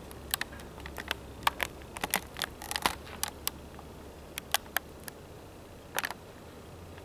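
Scattered light clicks and taps of handling noise, irregularly spaced and stopping about a second before the end, over a faint steady low hum.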